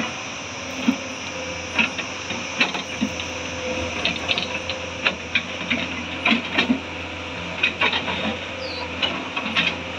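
Hyundai crawler excavator's diesel engine running steadily while its bucket digs into a rocky earth bank, with irregular knocks and clatter of bucket teeth and stones against rock.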